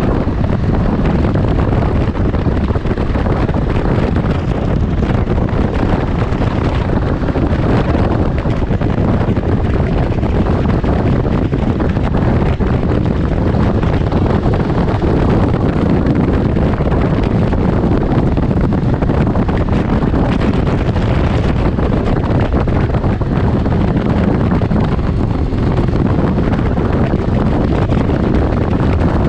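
Wind rushing over the microphone on a 2019 Can-Am Ryker Rally three-wheeler cruising at highway speed, its Rotax 900 three-cylinder engine and road noise running underneath. Steady, with no changes.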